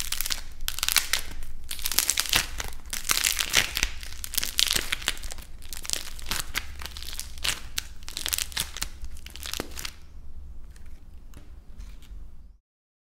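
A dried clay crust cracking and crackling in many quick snaps as hands squeeze and knead the soft clay beneath it. The crackling thins out and gets fainter about ten seconds in, then the sound cuts off shortly before the end.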